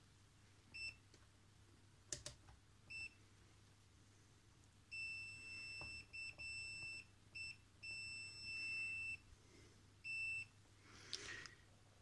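Digital multimeter's continuity buzzer beeping on one high tone: two short beeps, then from about five seconds in a run of longer beeps that start and stop as the test probes make and break contact, with a faint knock between them.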